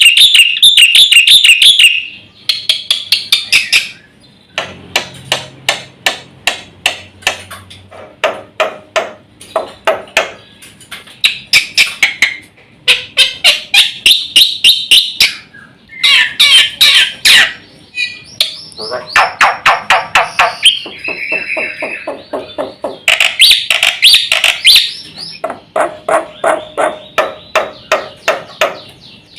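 Jalak putih (black-winged myna) singing a loud, varied song: fast strings of sharp repeated notes and chattering phrases, broken by short pauses.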